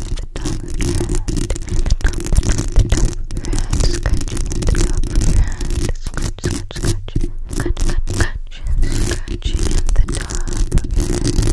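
Long fingernails scratching and tapping directly on a condenser microphone's bare metal mesh grille: a dense, unbroken run of scrapes and quick clicks over a deep rumble.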